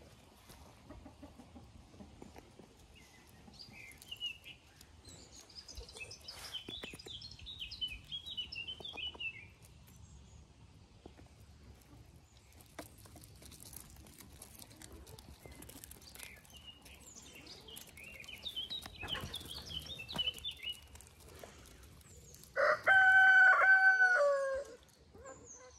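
A rooster crowing once, loudly, near the end: one long held call that drops in pitch as it finishes. Before it, a small songbird sings twice in quick, high chirping phrases.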